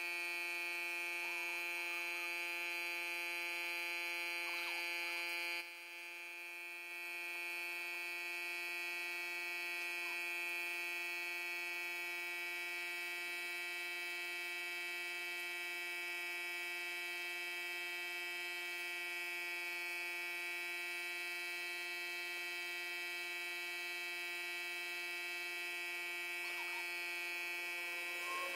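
A steady electric hum made of several even, unchanging tones, dipping briefly about six seconds in, with a few faint clinks.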